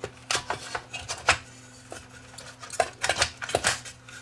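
Sheet-metal shielding cover being set and pressed into an amplifier chassis: irregular metallic clicks and knocks, with a quick cluster of them in the second half.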